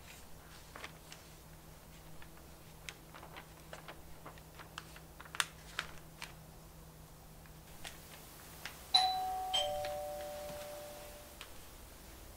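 Two-tone doorbell chime ringing once, ding-dong: a higher note and then a lower one, ringing on and fading over about two seconds, about nine seconds in. Before it, scattered faint clicks.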